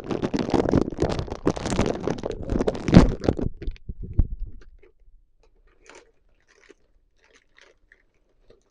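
Plastic packet of cheese crackers being torn open and crinkled, with the crackers crunching inside, for about three and a half seconds, then fading. A few faint clicks of handling follow.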